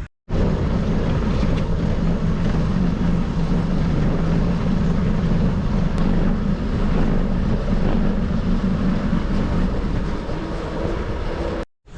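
Steady, loud rush of wind and rolling noise on a bike-mounted or handheld camera microphone while riding a bicycle at speed, starting and stopping abruptly.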